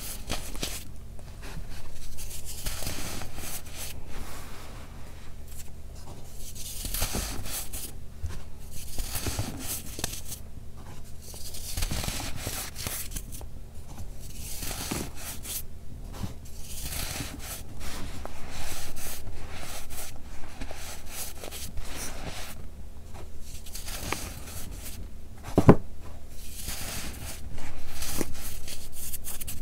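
Gritty loose baking soda crunching as a hand grabs, squeezes and lets it fall, in irregular bursts, with one sharper crack near the end.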